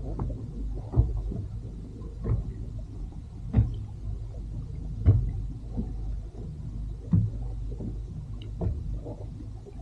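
Small waves slapping and knocking against the hull of a drifting inflatable boat, an irregular slap every second or so over a steady low rumble.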